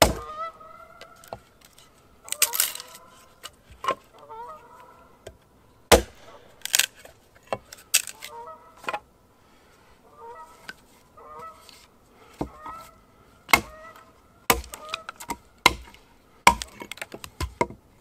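Geese honking in repeated calls, mixed with loud, sharp knocks and cracks at irregular intervals.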